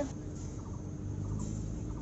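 Domestic fowl giving a few short, faint clucking calls over a steady low background hum.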